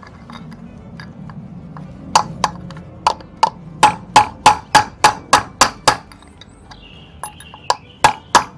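Claw hammer striking a steel socket extension used as a drift to knock the last wheel bearing out of a Suzuki FZ50's alloy front hub, each blow a sharp, ringing metal-on-metal clink. After a pause of about two seconds comes a quick run of about three strikes a second, then a few more spaced strikes near the end.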